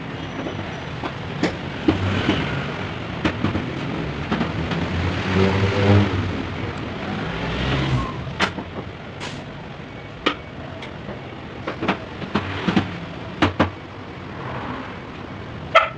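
A motor vehicle engine running, swelling for a moment about a third of the way in, with a scatter of sharp clicks and knocks over it.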